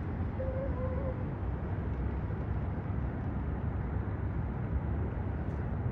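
Steady low outdoor rumble of distant traffic and wind-type ambience, even in level throughout. A brief wavering tone sounds about half a second in and lasts under a second.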